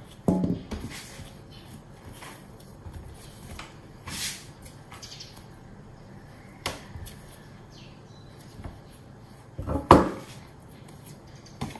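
Scattered soft thuds and knocks of hand work with risen bread dough: the dough turned out of a stainless steel bowl onto a silicone mat and cut with a metal dough scraper. A few separate knocks, with the loudest thump about ten seconds in.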